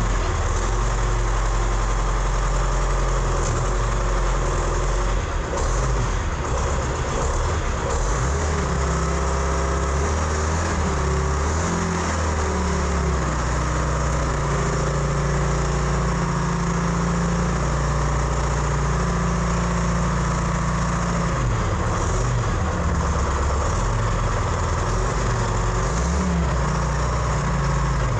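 Pettibone PM245 wheel loader's engine running as the loader drives forward under its own power, its speed rising and falling several times.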